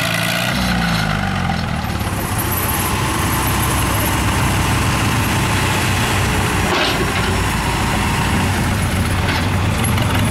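Antique Farmall tractor engine revving up about a second in, then running steadily. Two brief knocks come near the end.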